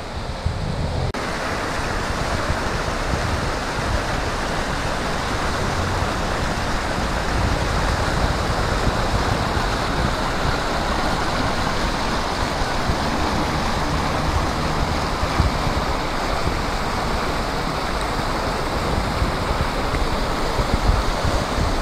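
Floodwater rushing across a street, a steady loud hiss of running water, with a car splashing through the flood near the end.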